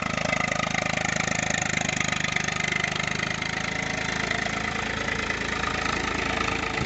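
Tractor diesel engine running steadily, its low note thinning a little after about four seconds.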